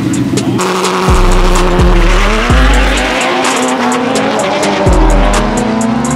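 Background music with deep sliding bass notes and steady hi-hat ticks, over a Ford Mustang's engine revving up through its burnout and launch, with the pitch climbing between about one and four seconds in.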